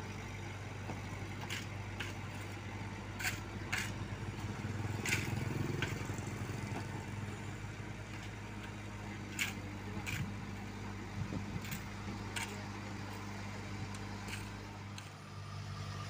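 Blaw-Knox asphalt paver's diesel engine running steadily. A scatter of short, sharp metallic clinks and scrapes sounds over it, and the noise grows rougher for a couple of seconds about four seconds in.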